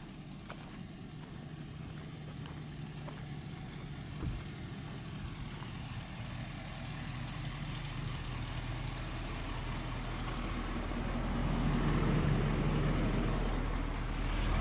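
A service truck's engine running with a low, steady hum, growing steadily louder as the truck approaches.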